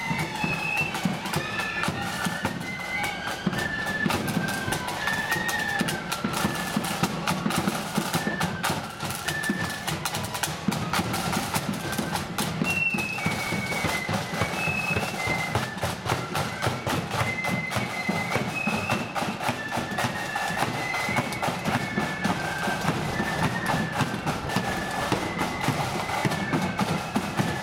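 Marching flute band playing: a quick melody on flutes over bass drum and side drums beating a steady march rhythm.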